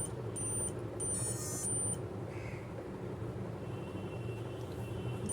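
Faint electronic beep from a Dell Inspiron 15 laptop's internal speaker during power-on with no display, part of its five-beep error code, which on Dell laptops points to a real-time clock (CMOS battery) failure. It sounds over a low steady background hum.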